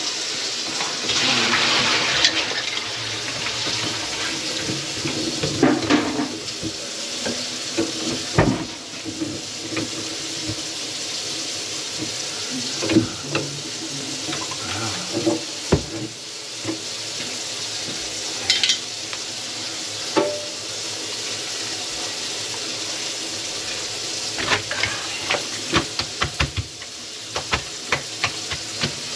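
Tap water running into a kitchen sink and draining away, with scattered clinks and knocks of metal and dishes. The drain line had been clogged with grease and is now taking water again.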